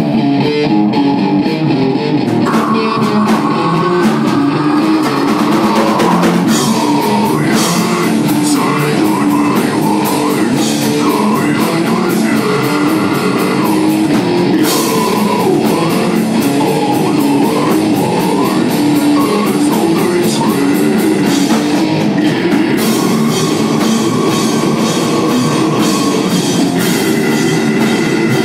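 Loud rock music from a band: guitar and drum kit playing, with singing.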